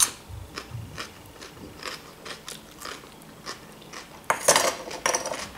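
Close-miked chewing and mouth sounds: a string of soft wet clicks as a mouthful of food is chewed. About four seconds in comes a louder clatter and scrape of a spoon against the plate.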